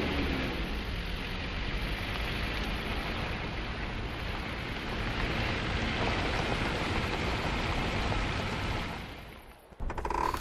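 Car driving along: a steady rushing engine-and-road noise with a low rumble, fading away near the end. A short tone sounds just before it ends.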